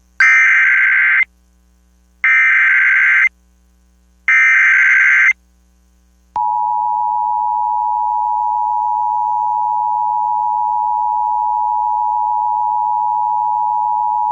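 Emergency Alert System activation: three one-second bursts of SAME header data, a rapid warbling digital screech, about a second apart, carrying a severe thunderstorm warning. They are followed about six seconds in by the steady two-tone EAS attention signal, which holds without a break.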